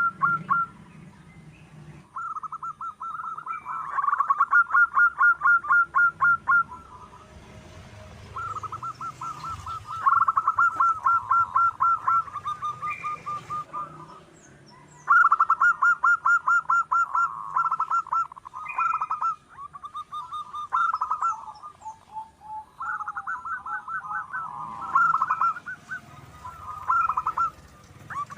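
Zebra dove (perkutut) singing: repeated phrases of fast, even, rippling coos, each a few seconds long with short pauses between. Faint high chirps of small birds sound alongside.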